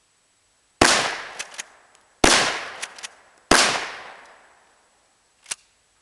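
Three 12-gauge shotgun shots about 1.3 seconds apart, each ringing out and fading over about a second. A pair of short clicks follows each of the first two shots, and a single click comes about two seconds after the last.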